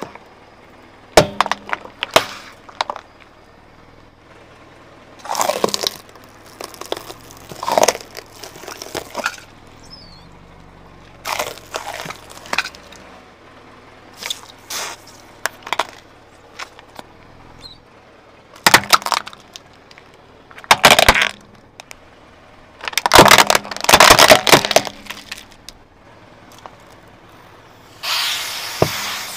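A car tyre rolling over and crushing small plastic bottles and rubber bulbs on asphalt: clusters of sharp cracks and pops, with the densest run of cracking about two thirds of the way through. Near the end comes a spraying hiss.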